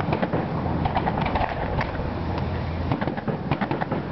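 Aerial fireworks display: a rapid, irregular run of sharp pops and cracks from bursting shells over a steady low rumble.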